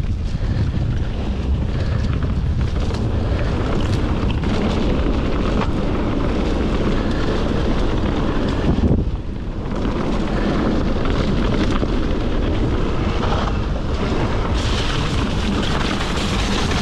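Mountain bike riding down a muddy, stony track: wind buffets the body-worn camera's microphone while the tyres and bike rattle and knock over the rough ground, easing briefly about nine seconds in.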